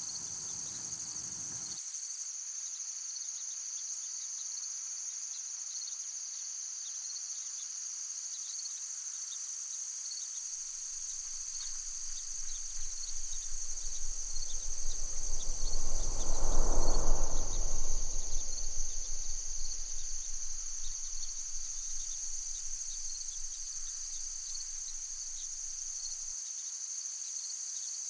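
Steady high-pitched chorus of insects in summer woodland, holding throughout. Underneath, a low rumble swells over several seconds to its loudest about halfway through, then fades away.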